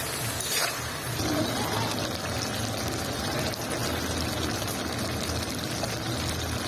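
Bottle gourd curry sizzling and bubbling in a black iron kadai, a steady wet hiss. A metal spatula scrapes the pan briefly about half a second in.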